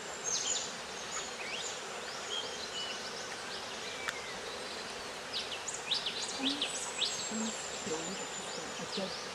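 Forest ambience: many short, sharp high-pitched bird chirps and a thin high whistle, over a steady insect buzz.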